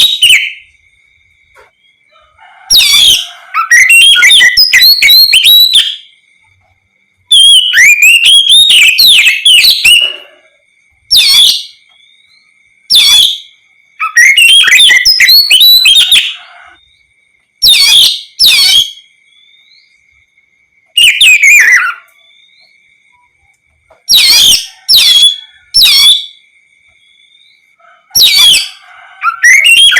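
Oriental magpie-robin singing loud bursts of rapid, varied whistled notes and slurs, each phrase a second or two long with short pauses between. A faint steady high tone runs underneath.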